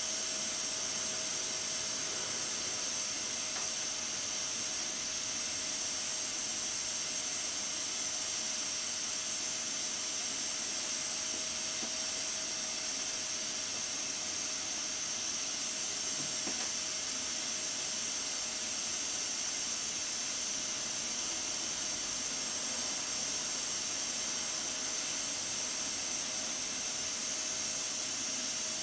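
Stovetop pressure cooker under pressure, steam hissing steadily from its valve, with a faint steady tone underneath.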